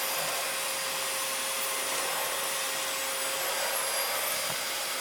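Household vacuum cleaner running steadily, a constant airy hiss with a thin high whine.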